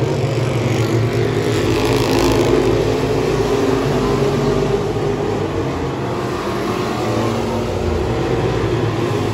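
Pure stock race cars' engines running at speed around a dirt oval, a steady pack noise with one car rushing past close about two seconds in.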